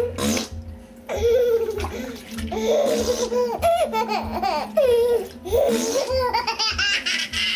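A young child and his father laughing together, with playful silly vocal sounds that swoop up and down in pitch, over some water splashing in a bathtub.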